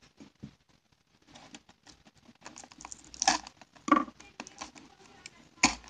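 Small fingerboard parts being handled close to the microphone: a string of light clicks and taps, with louder knocks about three and four seconds in and again near the end.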